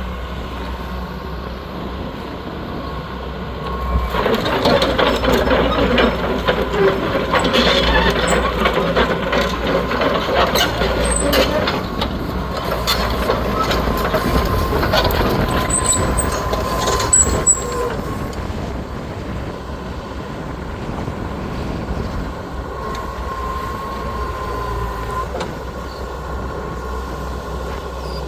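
Hitachi EX120 excavator's diesel engine running steadily. About four seconds in it gets louder for some fourteen seconds, with repeated knocks and clanks as the machine works, then settles back to a steady run.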